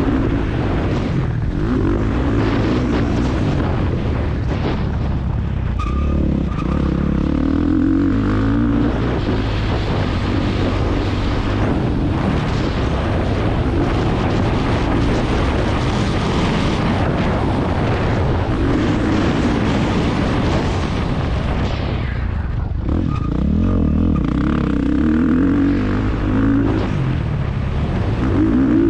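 Motocross bike engine heard close up from an onboard GoPro during a race, revving up and down repeatedly, with one brief drop in revs about two-thirds of the way through before it picks up again.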